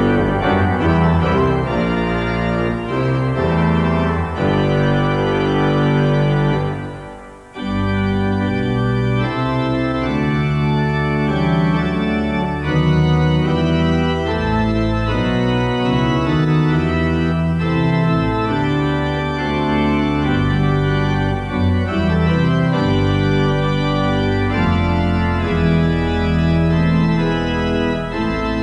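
Instrumental music played on an organ in slow, held chords. It fades briefly about seven seconds in, then starts again.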